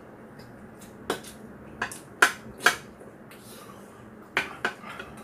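Metal spoon and chopsticks clinking against bowls while eating, about six sharp clinks, the loudest a pair about two seconds in.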